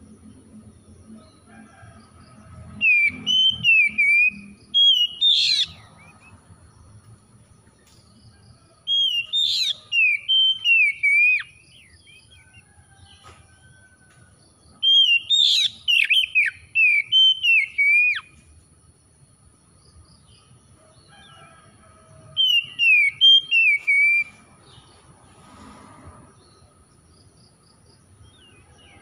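Oriental magpie-robin singing in four bursts of quick, varied whistled phrases, each a few seconds long, with pauses of several seconds between them.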